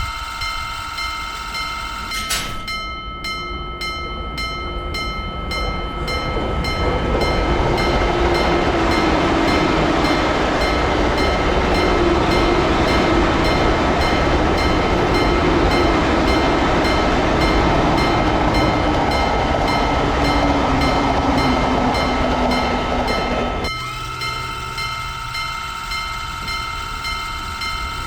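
Railroad crossing warning bell ringing in a steady, evenly repeating kan-kan. A train passes from about two seconds in: its rumble builds, holds loud, then cuts off suddenly a few seconds before the end, while the bell goes on.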